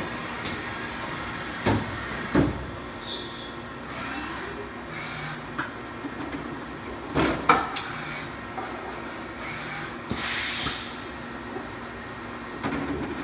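Steady background hum with a few sharp knocks, the loudest a pair about seven seconds in, and a few brief hissing rustles.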